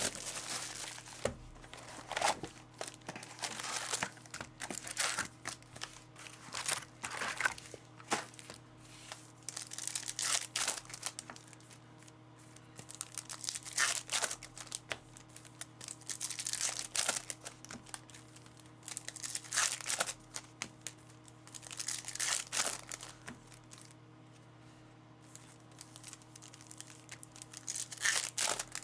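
Plastic and foil wrappers of a trading card hobby box and its card packs being torn open and crinkled, in irregular bursts with short pauses between.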